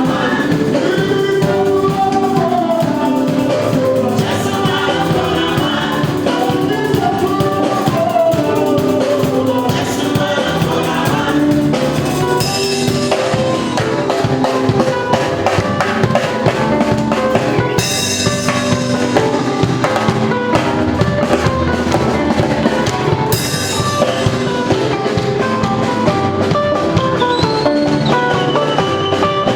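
Live band playing at a sound check, with a drum kit (bass drum and snare) keeping a steady beat under keyboard and bass lines. Two cymbal crashes come about 18 and 23 seconds in.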